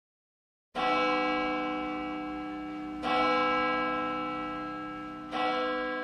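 A church bell tolling: three strokes a little over two seconds apart, the first about a second in, each ringing on and slowly fading.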